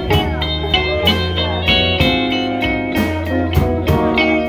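Slow blues played by a band: an electric guitar fill with bent, sliding notes between vocal lines, over bass and drums keeping a steady beat.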